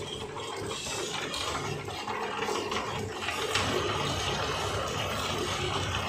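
Steady rushing noise of a cable-stripping machine running as blue cable is dragged across the floor and fed into its rollers, with a low motor hum growing stronger about halfway through.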